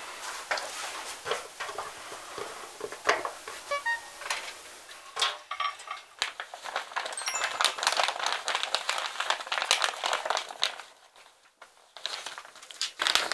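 A baby sucking on a milk bottle: irregular soft clicks and smacks with rustling of bedding. A few short bright blips come and go, and the sound drops almost to nothing shortly before the end.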